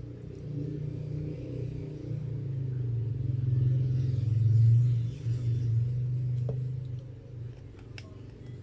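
Low engine rumble of a passing motor vehicle, growing louder for about four seconds and then fading away. A couple of faint clicks sound near the end.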